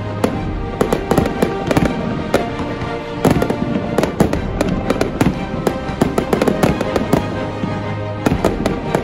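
Aerial fireworks bursting and crackling in quick succession, with many sharp bangs throughout, over background music.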